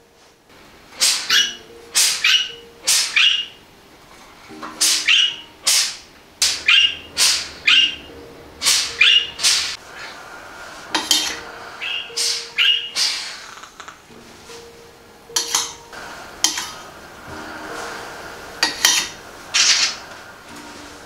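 Pet parakeet calling loudly and repeatedly: a long string of short, sharp, shrill chirps and squawks with brief pauses between them.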